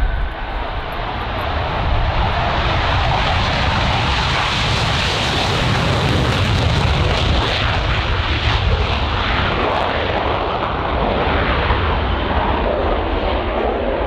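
Saab 35 Draken's single Volvo RM6 afterburning turbojet at full afterburner through the takeoff roll and climb-out: loud jet noise that swells over the first couple of seconds, then holds, crackling through the middle.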